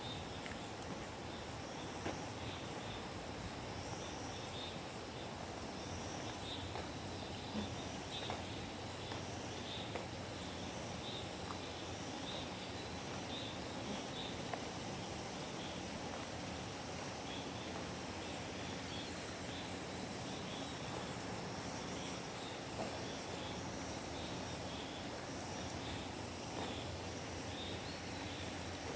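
Insects singing in a high-pitched chorus that pulses about once a second, over a steady even hiss.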